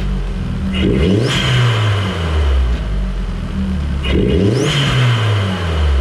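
VW Golf MK4 engine with a freshly fitted CTS cold air intake, blipped twice in neutral: the revs climb and fall back each time, and each drop is followed by a loud hiss of air through the intake, the 'choo-choo' noise the intake was fitted to bring out.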